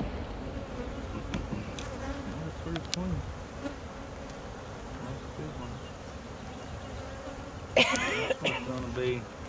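Honey bees buzzing steadily around an open nucleus hive. A few light clicks come from a metal hive tool working the wooden frames, with a louder burst of noise near the end as a frame is pried up and lifted out.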